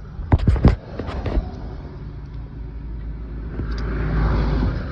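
Cessna 404 Titan's twin piston engines at takeoff power: a low rumble that swells to its loudest about four seconds in as the aircraft goes by. A few loud knocks near the start.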